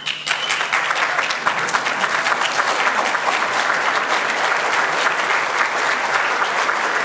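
A large audience applauding, many hands clapping in a dense, steady patter that starts all at once.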